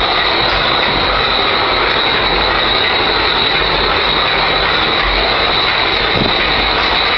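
Diesel locomotive running with its turbocharger failing: a loud, steady rushing noise with a high whine held through it.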